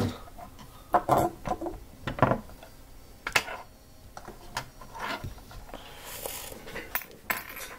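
Plastic Lego bricks clicking and knocking as pieces are handled and pressed together: a scattering of separate clicks, with a short rustle about six seconds in.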